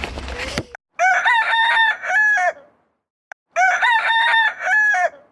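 Rooster crowing twice: two matching multi-note crows, each about a second and a half long, separated by a gap of silence. The second crow is the same crow repeated.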